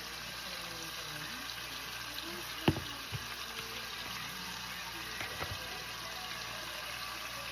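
Hamburger patties frying in a pan, a steady sizzle, with a sharp knock about two and a half seconds in and a few lighter knocks around five seconds.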